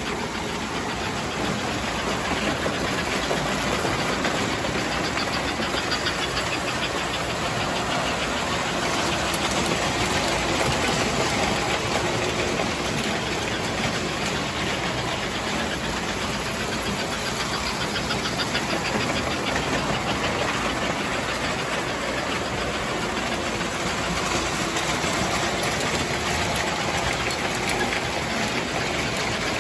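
O gauge three-rail model trains running on metal track: a steady, dense whir and rattle of electric locomotive motors and wheels.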